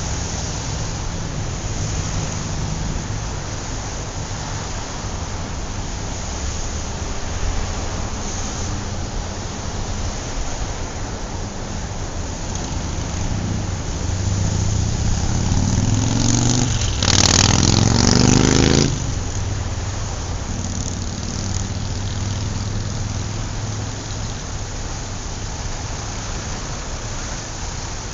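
City street traffic: a steady rumble of engines and tyres. About two-thirds of the way through, one vehicle accelerates past close by, its engine pitch rising before a loud rush that dies away quickly.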